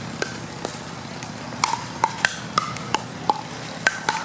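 Pickleball rally: paddles striking the hollow plastic ball and the ball bouncing on the court, a string of sharp pocks about every half second, with a few quick doubles.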